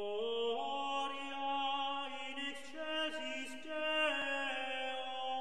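Sung chant in long held notes, the melody stepping slowly up and down in pitch.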